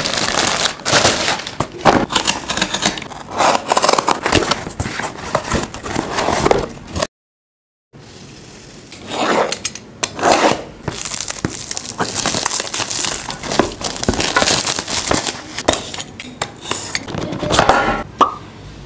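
Plastic courier mailer bag rustling and crinkling as a cardboard box is worked out of it. After a short break, a box cutter scrapes and slices through shrink wrap on a phone box, with crackling plastic and handling of the cardboard. A couple of short pops come near the end.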